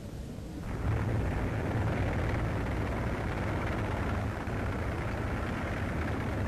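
Steady low rumbling roar of battle noise, swelling in about a second in.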